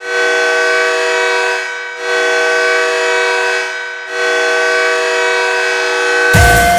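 Ice hockey arena goal horn sounding three long blasts of about two seconds each, a loud steady chord of several tones, with short gaps between. Near the end the goal song cuts in with a heavy beat.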